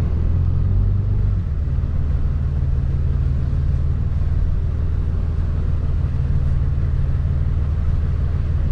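Diesel engine running steadily at low revs as the vehicle creeps along, a deep even hum that eases slightly about a second and a half in.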